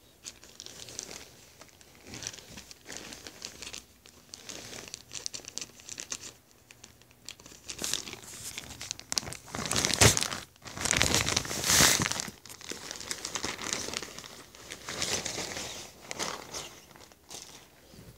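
Plastic shipping bag crinkling irregularly as it is handled, with the loudest, densest crinkling about ten to twelve seconds in.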